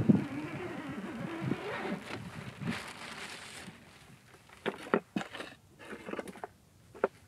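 Tent fabric rustling as a person handles the tent and gear: a sustained rustle for the first few seconds, then a series of short knocks and clicks.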